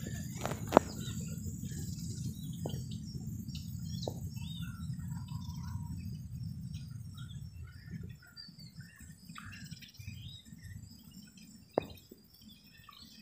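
Small birds chirping in short scattered calls, over a low rumble that fades out about two-thirds of the way through, with a few light knocks.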